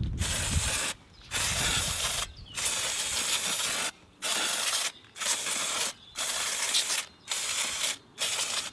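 Aerosol brake cleaner sprayed onto a bicycle disc brake rotor in about eight short hissing bursts with brief pauses between, degreasing the oil-contaminated rotor.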